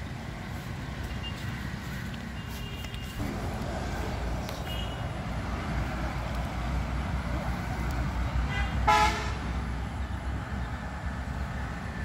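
A steady low rumble of outdoor background noise, with a short vehicle horn toot about nine seconds in.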